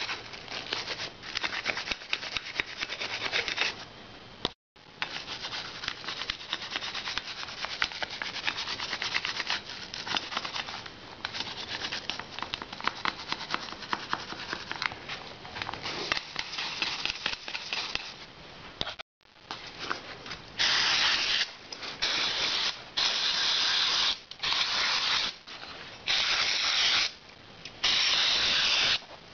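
A valve being lapped into its seat in a Harley-Davidson Evolution Sportster aluminium cylinder head: gritty metal-on-metal rubbing with grinding paste. It runs as a fast, even scratching, then from about two thirds in as six louder strokes of about a second each.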